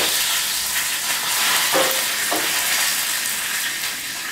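Fresh curry leaves sizzling in hot oil with mustard seeds, cumin and chopped garlic in a pan: the tempering for a spinach dish, a steady loud hiss that eases a little near the end.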